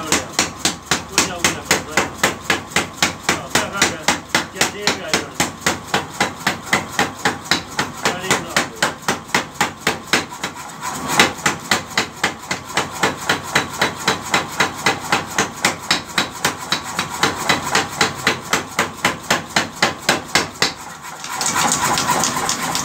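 Mechanical power hammer pounding a red-hot tractor blade in a fast, even run of blows, about three a second, drawing the edge thin to sharpen it. It pauses briefly about halfway through, and the hammering stops about a second before the end.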